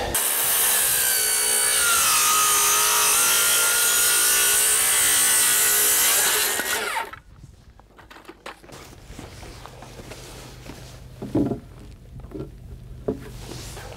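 Circular saw cutting an angled pitch cut through the end of a wooden board. The motor's whine drops as the blade loads in the cut and rises again before the saw stops about seven seconds in. After that, a low steady hum and a few short knocks.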